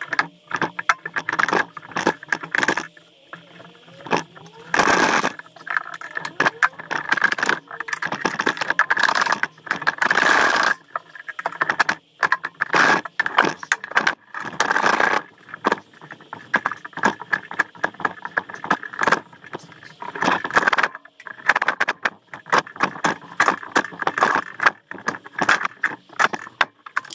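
Metal engine parts clanking, rattling and scraping while a Mercury 1500XS J-block outboard engine is taken apart by hand: many irregular knocks, with a couple of short lulls.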